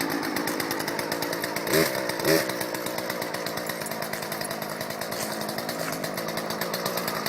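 Small gas-powered two-stroke chainsaw running steadily at idle with the chain brake on, with two brief louder blips about two seconds in.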